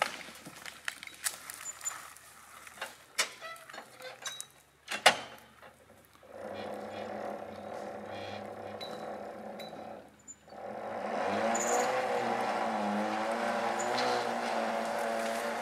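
Scattered knocks and cracks of wood, the loudest about five seconds in. Then the engine of a cable-logging skyline rig runs steadily from about six seconds, cuts out briefly, and comes back louder from about eleven seconds, its pitch rising and falling as the red carriage moves along the cable.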